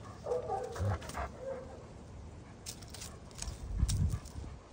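A German shepherd and a small white dog playing: a brief vocal sound from a dog in the first second, then scuffling with a few sharp clicks and dull low thumps.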